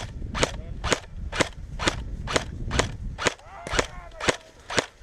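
Airsoft gun firing single shots at a steady pace, about two sharp cracks a second, around ten in all.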